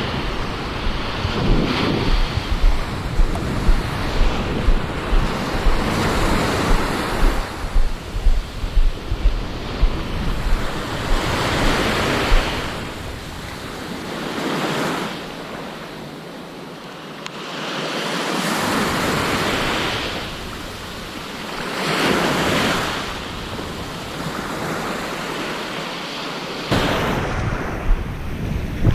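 Surf breaking on the beach, the wash swelling and fading every few seconds, with wind buffeting the microphone in choppy gusts over the first several seconds.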